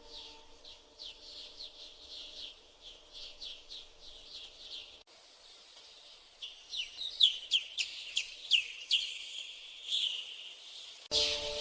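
Small songbirds chirping: a run of quick, high, falling chirps, several a second, that cuts off suddenly about five seconds in, then a louder, busier run of chirps from about six seconds.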